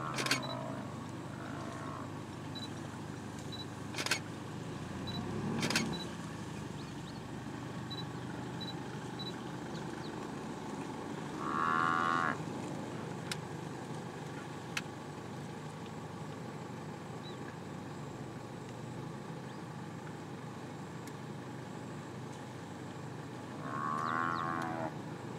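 Cape buffalo bellowing twice, each a drawn-out call of about a second, about twelve seconds apart: the distress calls of a buffalo being brought down by lions.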